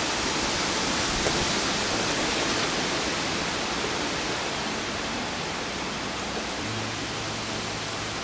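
A steady, even hiss with no distinct knocks or clicks; a faint low hum joins near the end.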